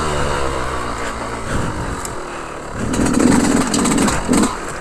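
Yamaha YZ125 two-stroke dirt bike engine running at low revs, its pitch dropping near the start and the engine getting louder about three seconds in. The rider feels it is clogging up a bit and not running its best, and worries it may foul a plug.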